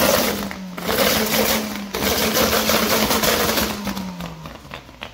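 Small hatchback's engine running at raised revs, its exhaust note held at a steady pitch, then the revs drop away and the sound fades near the end.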